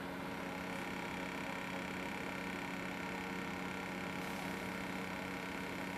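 Steady electrical hum with a faint higher whine from the running Smith Corona PWP220 word processor and its monitor while it prepares a floppy data disk; no drive clicks or changes are heard.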